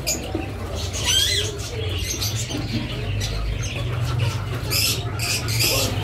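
Caged birds calling: a wavering, gliding squeak about a second in and scattered faint chirps, with a few short scuffling bursts near the end, over a steady low hum.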